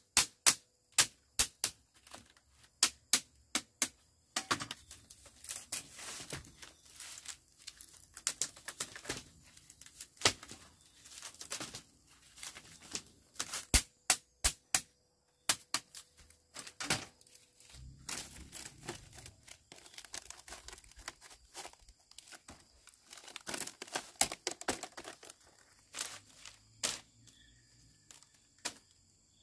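Repeated sharp knocks, evenly spaced at about two a second for the first few seconds, then irregular knocks mixed with rustling and crackling.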